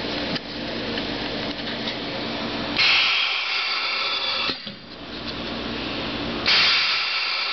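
Ultrasonic welder's horn welding corrugated polypropylene sheet: two weld cycles, each a loud, high-pitched screech lasting under two seconds, about three seconds in and again near the end. A steady machine hum runs between them.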